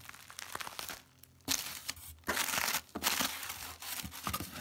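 Bubble wrap and plastic packing material crinkling and rustling as they are handled and pulled out of a cardboard shipping box, in several bursts with a short lull about a second in.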